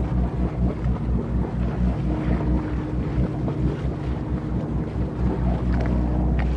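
Boat engine running steadily with a low hum, while wind buffets the microphone.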